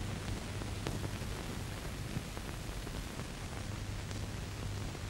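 Steady hiss and low hum of an old film soundtrack, with a couple of faint clicks.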